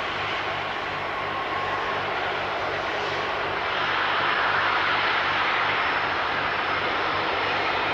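Jet airliner's engines running with a steady roar, growing a little louder about three and a half seconds in.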